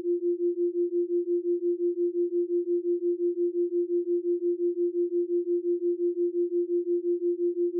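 Electronic brainwave-entrainment tone: a single steady sine-wave pitch that pulses evenly about four to five times a second, a theta-rate beat.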